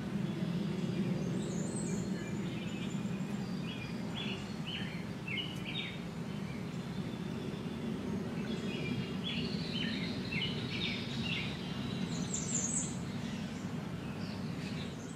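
Small birds chirping in two runs of short quick notes, with a few thin high calls, over a steady low rumble of outdoor background noise.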